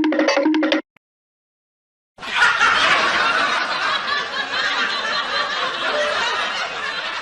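A short rhythmic musical effect ends under a second in. After a pause of more than a second, a laughter sound effect follows: a dense burst of people laughing that starts loudest and lasts about five seconds.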